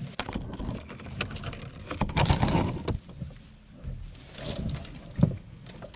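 Cut leafy branches rustling and swishing as they are handled in a small boat, with scattered knocks and one sharper thump about five seconds in.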